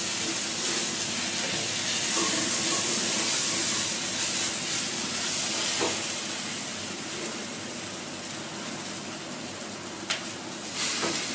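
Diced onion, carrot, potato and green peas with spices sizzling in sesame oil in a pan as they are sautéed, the sizzle easing off over the second half. A couple of sharp clicks near the end.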